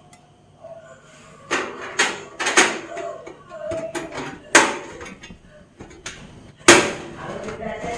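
Irregular sharp clicks and knocks of computer parts being handled and fitted during a PC assembly, the loudest knock near the end.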